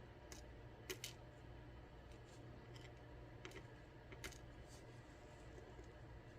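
Faint, scattered light clicks of small metal lock parts and tools being handled while an ASSA Twin 6000 lock cylinder is taken apart, over a low steady hum.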